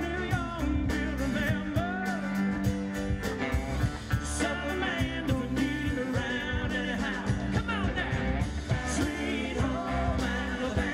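Live band playing a song with a steady drum beat: a woman sings lead over electric and acoustic guitars and keyboard.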